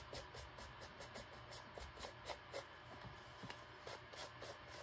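Faint scratchy rubbing with small irregular ticks: a cloth wiped over a 3D-printed plastic walkie-talkie body, working in grime weathering.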